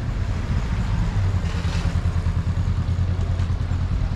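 A motor vehicle engine running close by, a steady low drone that grows stronger about a second in, over general street noise.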